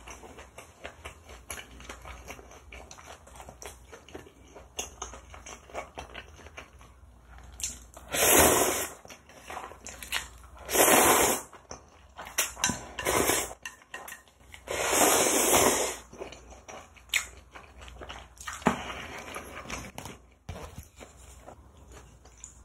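Instant ramen noodles slurped loudly three times, each slurp lasting about a second, with small clinks of chopsticks and a spoon against the bowl and pan in between.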